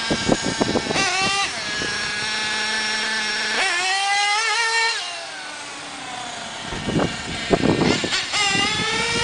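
Radio-controlled helicopter hovering low: a motor-and-rotor whine that holds steady, then rises and falls in pitch a couple of times as the throttle changes. A few sharp knocks come near the start and again near the end.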